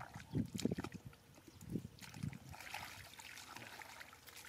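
Shallow muddy water and mud sloshing and squelching as a person wades and scoops through it by hand, in irregular soft splashes, several close together in the first second.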